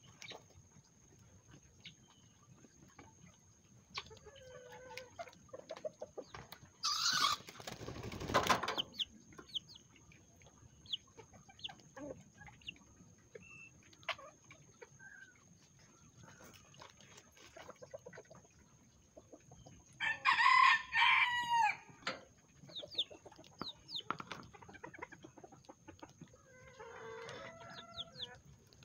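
Bantam chickens clucking softly while feeding, with a rooster crowing once for about two seconds around two-thirds of the way through. About seven seconds in there is a loud, noisy burst lasting about a second and a half.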